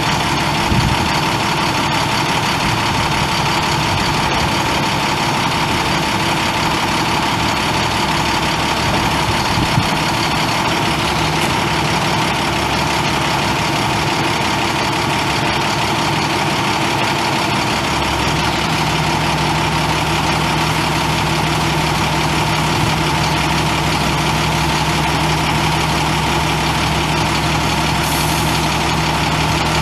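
International MaxxForce 10 9.3-litre inline-six turbo diesel of a 2008 International 7500 truck idling steadily. A deeper steady hum joins it a little past halfway.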